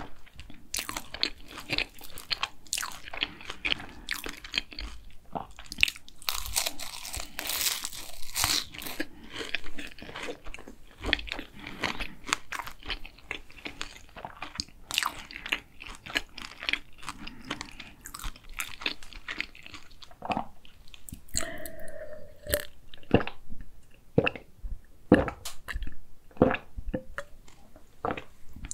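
Close-miked chewing of a raspberry-filled cronut: the flaky, crisp croissant-doughnut pastry crunches in irregular crackles as it is bitten and chewed with the mouth full.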